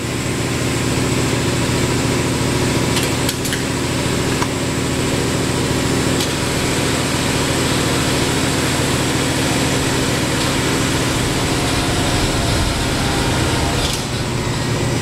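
Air-powered vacuum lifter's pneumatic system running: a steady mechanical hum with a constant hiss of air, with a few faint ticks about three seconds in.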